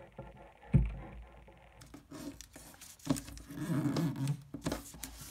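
Thin origami paper being folded by hand, its corners brought in to the center and creased: rustling and sliding of the paper with small sharp crackles, mostly in the second half. A single dull thump about a second in.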